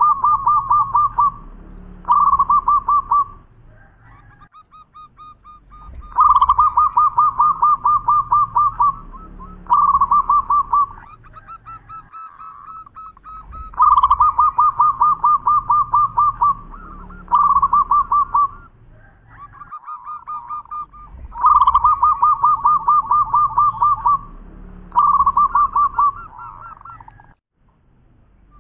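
Zebra dove (perkutut) singing its cooing song: each bout is a fast run of clipped notes, then a shorter run and a softer trailing part. The bout repeats about every seven and a half seconds, three full times after the tail of one at the start.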